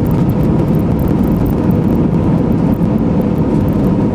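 Jet airliner cabin noise during the landing roll on the runway: a loud, steady rumble of engines and wheels, with a faint steady hum running through it.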